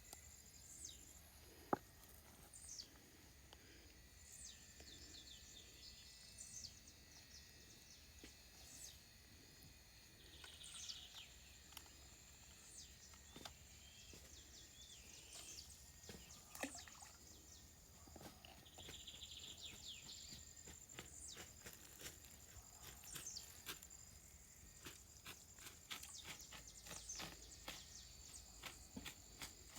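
Faint outdoor ambience: a steady high insect trill with scattered bird chirps and light clicks.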